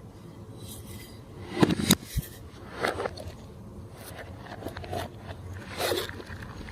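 Glossy slime being worked by hand, giving irregular sticky crackles and pops, loudest about two seconds in.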